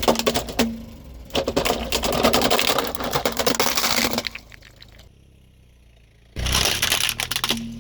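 Crackling and crunching of things being crushed under a car's tyres, with some splashing of liquid. It comes in three loud bursts that start and stop abruptly.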